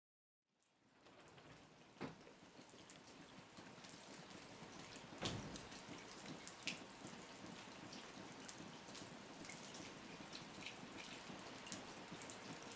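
Faint, steady hiss of train carriage ambience, with a few sharp clicks and knocks, the loudest about five seconds in.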